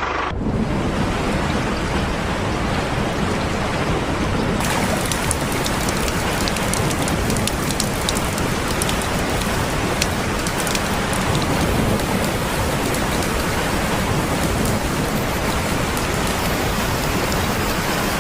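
Steady water noise with a fine patter of small ticks, growing brighter about four and a half seconds in.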